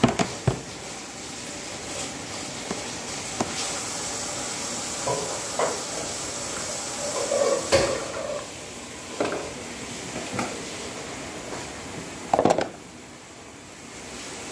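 Liver frying in a pan with a steady sizzling hiss, over scattered clinks and knocks of dishes and utensils being handled. A short louder clatter comes near the end, after which the hiss is quieter.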